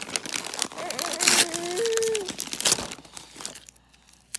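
Gift wrapping paper being torn and crumpled by small hands, crinkling in quick irregular bursts that die down about three seconds in.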